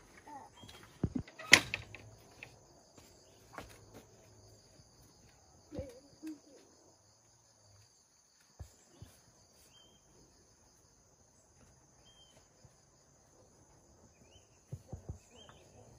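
Insects chirring steadily at a high pitch, with scattered knocks and taps, one sharp knock about a second and a half in and a small cluster near the end.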